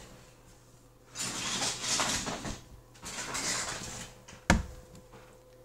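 Handling noise as a doll and toys are moved about by hand: two stretches of rustling and scraping, with one sharp knock about four and a half seconds in.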